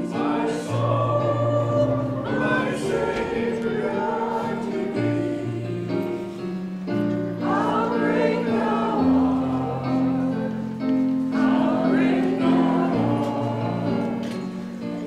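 Choir music: several voices singing together in long held notes.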